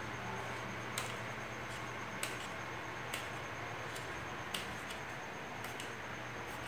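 A few short, irregular clicks from handling EVA foam as fingers pinch and press a contact-cemented seam closed, over a steady background hiss and low hum.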